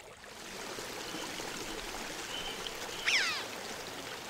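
Steady rushing noise of running water, fading in over the first second. About three seconds in comes a short, falling, whistle-like call.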